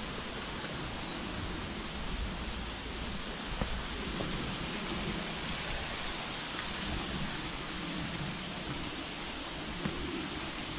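Steady rushing of a small creek running over rocks, with a few faint footfalls on a dirt and leaf-litter path.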